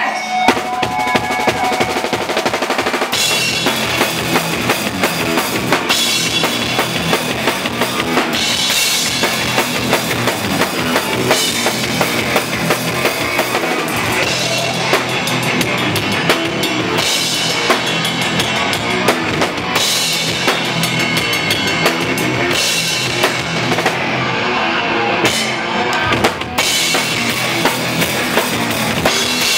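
Loud live hardcore punk band playing: a pounding drum kit with bass drum, snare and cymbal crashes under distorted electric guitars. The cymbal wash drops out and comes back several times as the song moves between sections.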